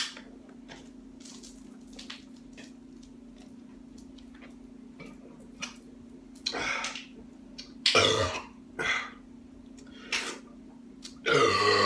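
A large Foster's beer can being shotgunned: a sharp click as the can is popped open at the start, then a few quiet seconds of drinking. From about six seconds in come several loud coughs and gasps between swigs, the last a long voiced one near the end.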